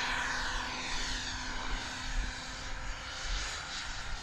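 Bommerang RC Mini Viper ducted-fan jet model whining in flight, its pitch sliding down and its level easing off as it flies away.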